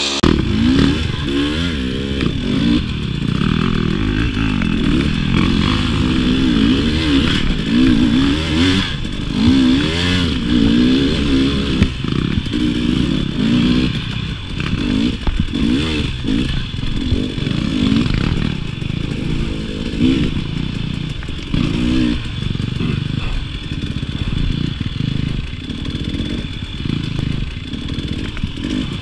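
KTM 300 two-stroke dirt bike engine revving up and down over and over as it is ridden hard through a trail section, its pitch swinging every second or so, with occasional knocks.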